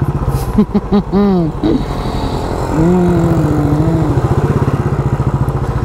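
Motorcycle engine running with a steady, fast pulsing beat, with brief voices over it.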